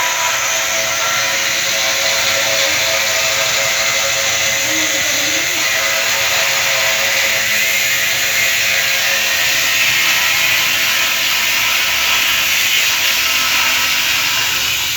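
Bosch angle grinder running steadily as its disc cuts, a continuous loud whine with a strong hiss.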